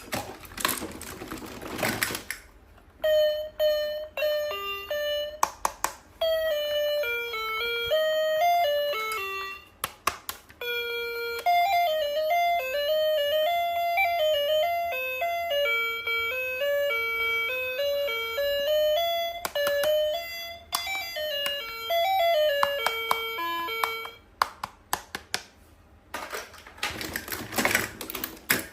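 An electronic chime-like melody of single notes plays from a toy for about twenty seconds, pausing briefly a few times. Rustling handling noise comes just before it and again near the end.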